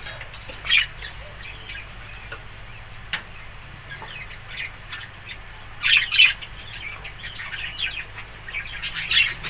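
Budgerigars chirping in short, high calls, in clusters about a second in, around six seconds in and near the end, with a few faint clicks between.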